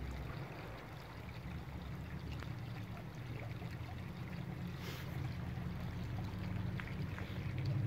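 Shallow water running across a pavement and along the kerbside gutter, a steady wash of flowing water over a low rumble.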